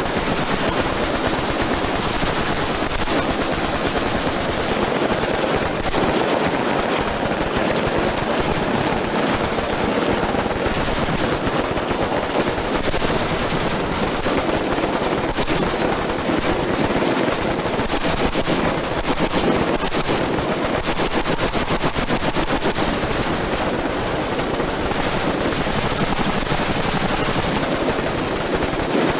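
Continuous automatic gunfire from several machine guns firing at once on a shooting line. The bursts overlap so densely that the firing never pauses.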